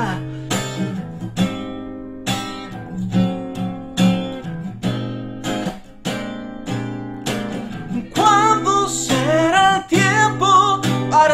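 Acoustic guitar strummed alone, one chord stroke after another. About eight seconds in, a man's singing voice joins it.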